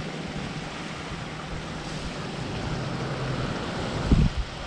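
Strong wind blowing across the microphone: a steady rushing noise, with a brief louder low rumble from a gust near the end.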